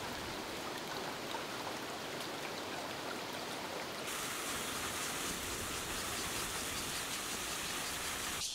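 Water flowing in a stone-banked irrigation channel, a steady rush. About four seconds in it switches abruptly to a brighter, hissier splashing of water spilling down a small concrete weir.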